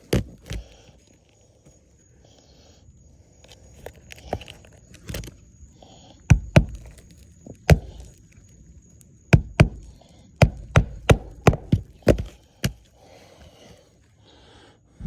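A series of sharp knocks or blows, coming in uneven clusters of two to four with short pauses between them.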